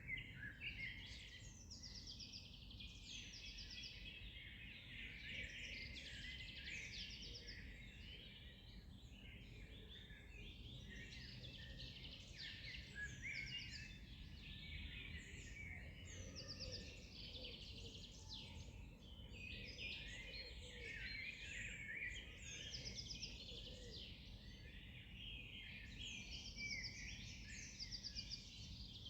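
A dawn-chorus-like mix of many songbirds chirping and trilling at once, with calls overlapping continuously and a short rapid trill recurring every few seconds. A faint low rumble runs underneath.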